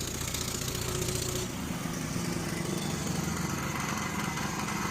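An engine running steadily, a continuous low rumble that changes in tone about a second and a half in.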